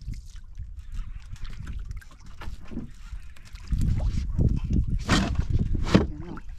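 Wind buffeting the microphone over water lapping against a small boat's hull, getting louder a little past halfway through. Two short, sharp noises come near the end.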